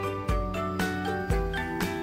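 Background music with a steady beat, about two bass thumps a second under held melodic notes.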